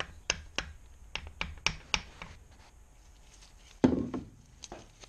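Sharp metal clicks of a spanner being fitted to and worked on the acorn bolts of a Kawasaki KLR 650 cylinder head, about eight in the first two seconds, then one louder knock about four seconds in, followed by two fainter clicks.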